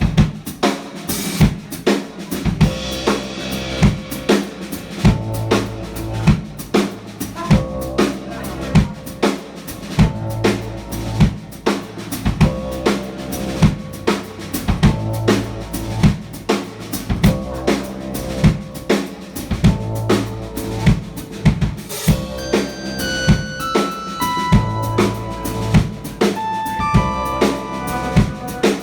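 Live band playing an instrumental passage: a drum kit keeps a steady beat of kick and snare over a bass line. Late on, a higher melodic line of held notes comes in on top.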